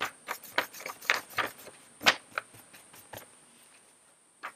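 Paintbrush stroking diluted acrylic paint side to side across paper: a run of short brushing scrapes, about three a second, that stops about three seconds in and starts again at the very end.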